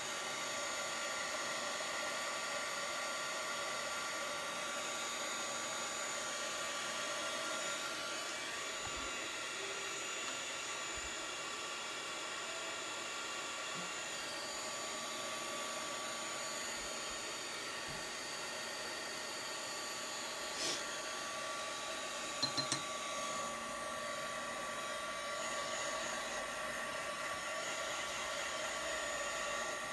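Handheld blow dryer running steadily with a high motor whine, blowing over a wet watercolour wash to dry it. A few faint clicks sound about two-thirds of the way through.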